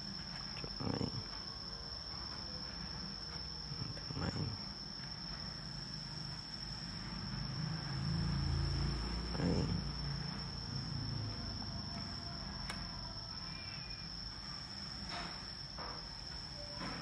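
A steady high-pitched cricket-like trill with a low hum beneath it, and a few soft knocks scattered through it.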